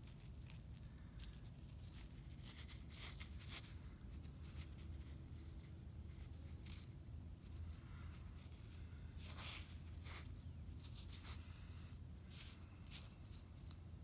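Irregular crackling and rustling of hands handling a small stone spear point and the camera close to the microphone, loudest about three seconds in and again around nine to ten seconds, over a low steady rumble.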